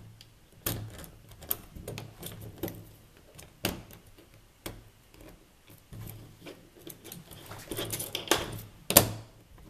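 Metal pick tapping, clicking and scraping in the screw holes of a Version 2 airsoft gearbox's metal shell as the two halves are lined up, in irregular small clicks with a burst of scraping and a sharp click near the end.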